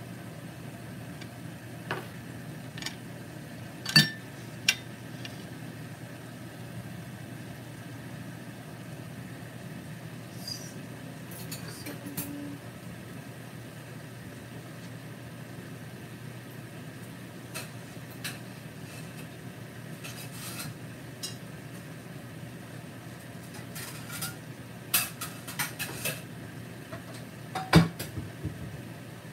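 Pan of eggs and tomatoes cooking on an electric stove: scattered sharp pops and clicks, loudest about four seconds in and in a cluster near the end, over a steady low hum.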